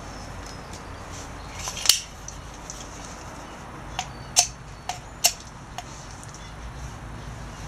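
Steel scraped down a small ferrocerium rod on the back of a sealable match case, throwing sparks: about six short, sharp scrapes at irregular intervals, the first about two seconds in.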